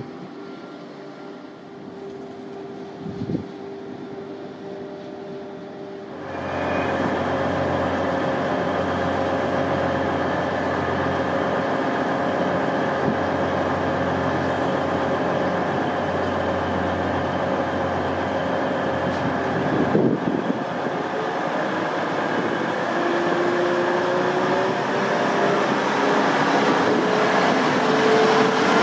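Grand Central Class 180 'Adelante' diesel multiple unit's underfloor diesel engines running steadily at the platform, starting suddenly about six seconds in after a quieter stretch. Near the end the engine note rises steadily in pitch and grows louder as the train pulls away.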